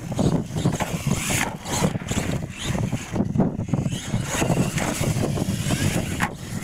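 Radio-controlled monster truck driving hard over a dirt course, its motor and tyres running under heavy wind buffeting on the microphone.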